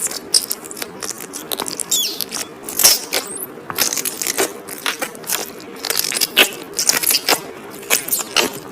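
Fingers poking a borax-free 'bird-chirp tofu' slime, a clear slime base filled with sponge pieces, making irregular squelchy pops and squeaks. A few of the squeaks slide up or down like bird chirps. The sound comes from the sponge pieces inside the clear slime being squeezed.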